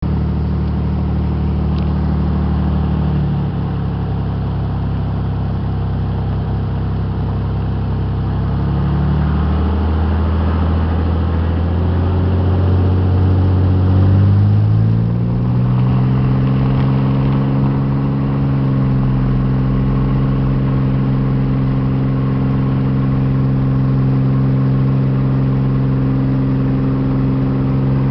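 Cessna 206's six-cylinder piston engine and propeller running at low power, then rising in pitch over a few seconds about halfway through as the throttle comes up to takeoff power, and holding steady at full power through the takeoff roll.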